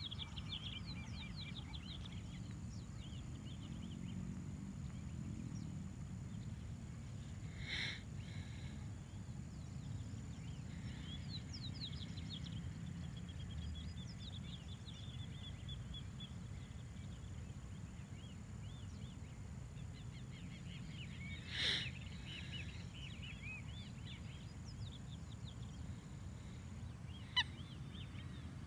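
Faint outdoor pond ambience: many small birds chirping, with two louder honking bird calls about 8 and 22 seconds in, over a low wind rumble and a thin steady high whine.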